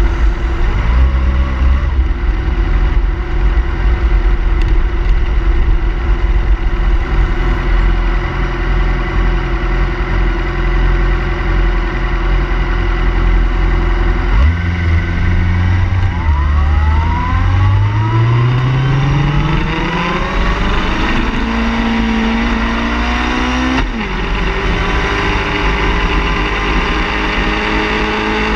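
Car engine running steadily, then from about halfway accelerating with a slowly rising pitch; a gear change near the end drops the pitch before it climbs again.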